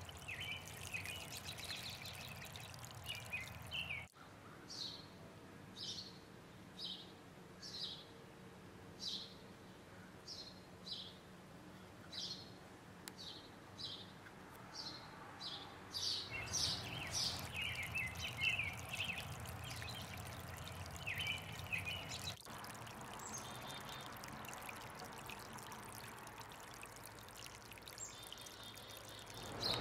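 Water trickling over pond rocks, with house sparrows chirping in single short chirps about once a second, turning to quicker twittering for a few seconds.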